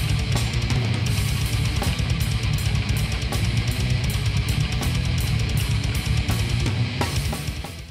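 Background music with guitar and a steady drum beat, fading out near the end.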